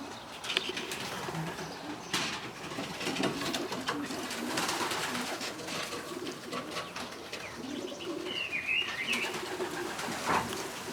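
Domestic racing pigeons cooing, low and wavering, with scattered clicks and scuffles from the birds moving about. A short high chirp rises and falls about eight seconds in.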